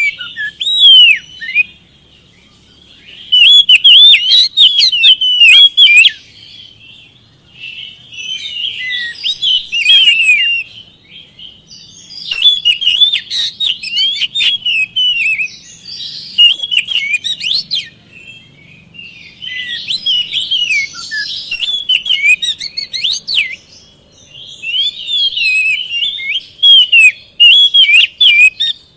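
Oriental magpie-robin singing: bursts of a few seconds of quick, varied rising and falling notes, separated by pauses of a second or two.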